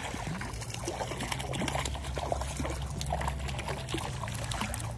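Hooked trout thrashing at the water's surface while being played in, with irregular splashes and trickling water.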